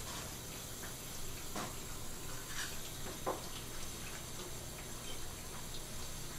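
Tap water running in a steady stream onto a whole red sea bream's head and a plastic cutting board, rinsing the fish. A few short clicks come through about one and a half, two and a half and three seconds in.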